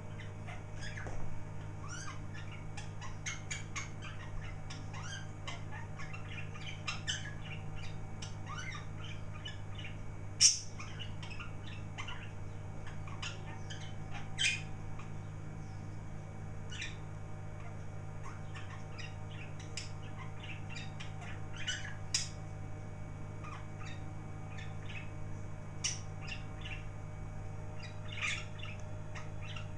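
Two budgerigars chirping like mad, with a continuous run of quick chirps and chatter broken by a few louder sharp squawks, the loudest about ten seconds in. A steady low hum runs underneath.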